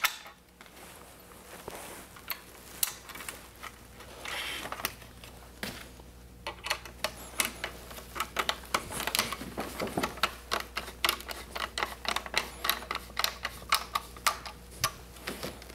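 Phillips screwdriver driving machine screws with nuts through a plastic bow support clamped on an aluminium tube: a run of light, quick clicks and ticks, sparse at first and coming thicker and faster from about halfway on.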